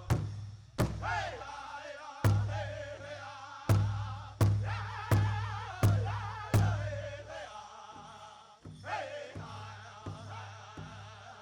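Powwow drum group singing a chicken dance song: voices in high wavering unison over a large shared drum. The drum strikes are loud and ring deep, spaced unevenly at first and then about three-quarters of a second apart; after about 7 s they turn softer and quicker.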